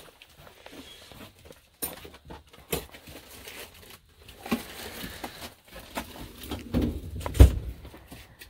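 Handling noise: scattered light clicks, rustles and knocks, with a heavier thump about seven and a half seconds in.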